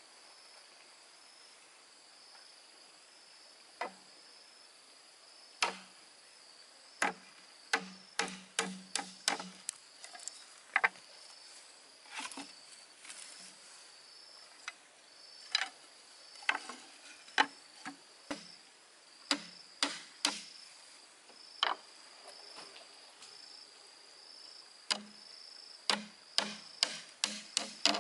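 Sharp, irregular blows of hand-tool work, some coming in quick runs of several a second, over a steady, pulsing chirr of insects.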